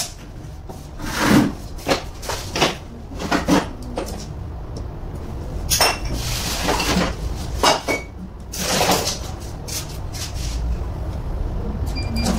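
Screwdriver and small metal parts clinking and scraping against a stripped alternator's metal housing, a string of irregular knocks and scrapes.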